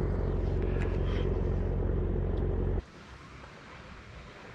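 Steady low engine hum that cuts off abruptly about three seconds in, leaving only faint outdoor background noise.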